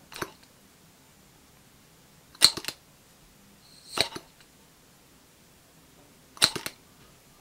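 Miniature V-twin model engine turned over by hand: four short clatters of small metallic clicks, a second or two apart, as the crankshaft is flicked round.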